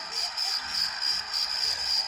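A ringtone or sound effect played on a Samsung SGH-D500C mobile phone: a high warbling tone pulsing about three to four times a second over a steady hiss.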